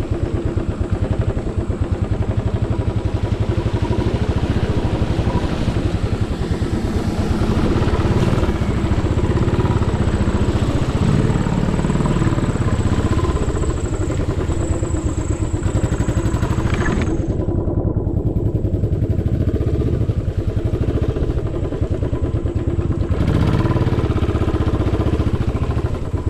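Royal Enfield motorcycle engine running steadily at low speed with an even pulsing exhaust beat. For several seconds about two-thirds of the way through, the higher part of the sound drops away.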